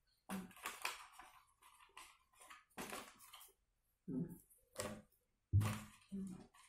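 Crayons clicking and knocking against a clear plastic crayon case as they are handled and pushed back into its slots: a series of short sharp knocks, with a few duller, lower sounds from about four seconds in, the loudest about five and a half seconds in.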